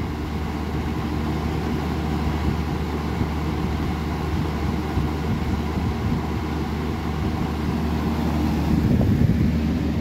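Vintage Hoover 20-inch box fan with an old McMillan motor running on high speed: a steady rush of moving air over a low motor hum.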